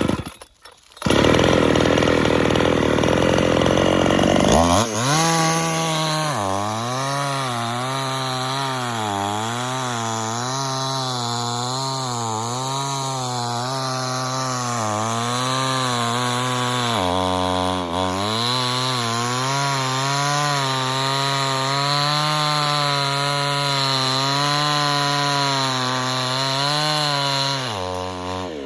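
Two-stroke chainsaw cutting into a large tree trunk. Its engine note rises and falls about once a second as the chain bites and recovers, with a brief dip about two-thirds of the way through. A rushing noise comes before the saw note begins, a few seconds in.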